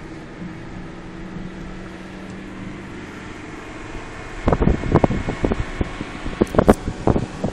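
Steady low drone of a car driving, heard inside the cabin. From about four and a half seconds in, irregular loud buffeting thumps hit the microphone.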